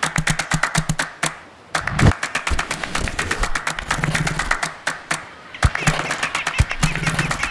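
Fast percussive music of claps and taps, about eight to ten hits a second, breaking off briefly twice.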